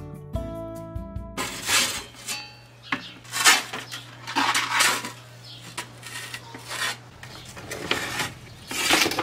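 Kitchen utensils scraping and clinking against dishes in irregular strokes, starting about a second and a half in.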